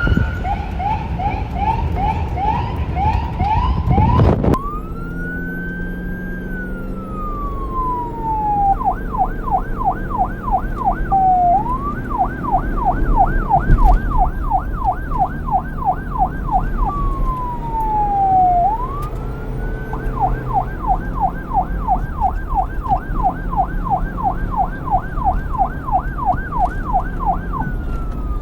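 Police car electronic siren alternating between a slow wail, rising and then falling, and a fast yelp of about three sweeps a second, with a low vehicle rumble underneath. In the first few seconds a quicker chirping siren pattern climbs in pitch, then breaks off abruptly into the wail.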